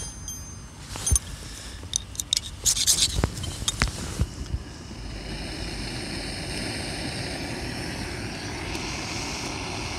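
A few sharp metallic clicks and knocks, then from about four and a half seconds a remote-canister gas camping stove burning with a steady rushing sound. Near the end the sound changes a little as the pot is set onto the flame.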